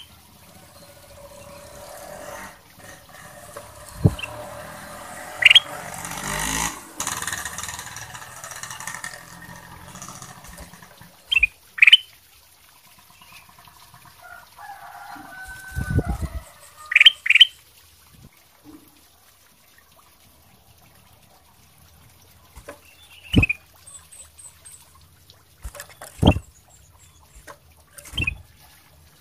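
Caged ruby-throated bulbul (kutilang emas) giving short, sharp rising chirps every few seconds, often in pairs, with one brief warbled phrase about halfway through. Soft thumps and a wing flutter near the end as it hops and flaps about the cage.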